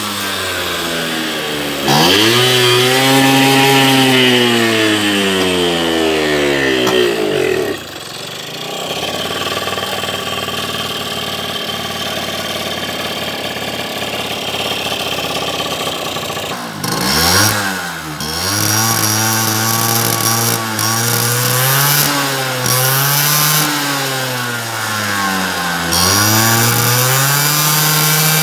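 Scooter engine running on the stand. It is revved up at about two seconds and held high for some five seconds, then falls back to a lower steady running for several seconds. After that it is blipped up and down in a series of short revs, and near the end it holds a steady higher speed.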